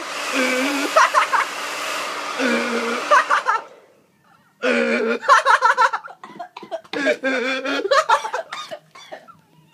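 Hair dryer blowing at full power, switched off about three and a half seconds in. Over it and after it come voices yelling and laughing.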